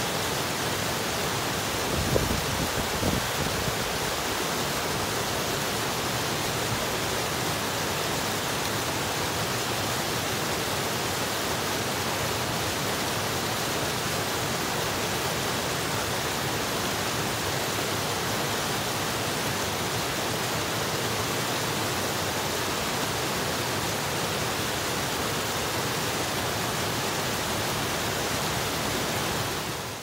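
Creek rapids: white water rushing steadily over and between boulders in an even, unbroken rush. A few brief low thumps come about two to three seconds in.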